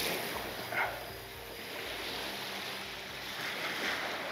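Steady wind and wash of the sea at the shoreline, with a brief short sound about a second in.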